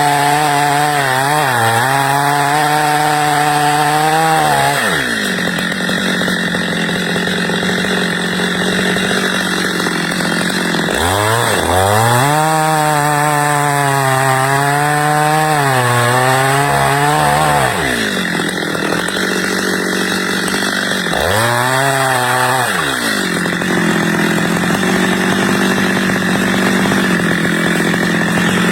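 Stihl two-stroke chainsaw cutting wood. It runs at high revs with the pitch sagging and recovering under load three times, and drops back to a lower, steadier speed in between.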